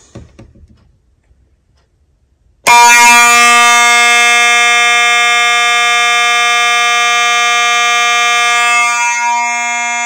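Simplex 2901-9840 fire alarm horn, set off by the panel's drill switch, sounding one steady, continuous, loud buzzing tone. It starts abruptly about three seconds in and holds, dipping slightly near the end.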